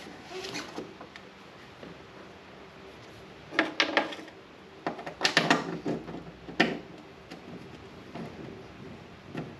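Metal clunks and rattles from prying the front of a 2002 Polaris XC 500 snowmobile's rear suspension skid up, with a pry bar levered on a wooden 2x4, to line it up with its mounting bolt hole. A short cluster of knocks comes about three and a half seconds in, a longer run a second later, and one more sharp knock about two-thirds through.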